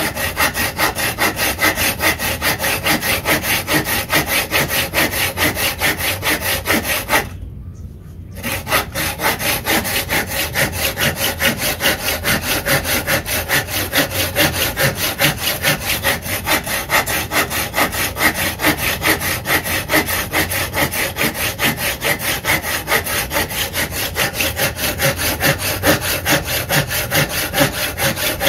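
A Wipro folding hand saw cutting through a wooden block with rapid, even back-and-forth strokes, the teeth rasping through the wood. The sawing breaks off for about a second roughly seven seconds in, then carries on.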